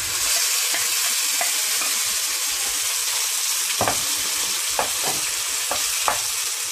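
Freshly added chicken pieces sizzling in hot oil with ginger-garlic paste and curry leaves in a frying pan, a steady hiss. A wooden spatula stirring them knocks against the pan a few times in the second half.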